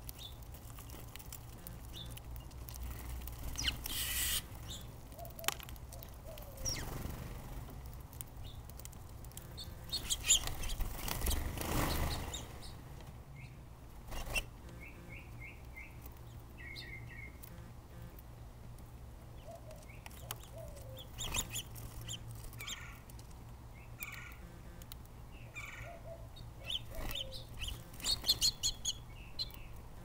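Small birds at a hanging seed feeder: scattered short chirps and several brief bursts of wing flutter as they land and take off, with a few sharp clicks.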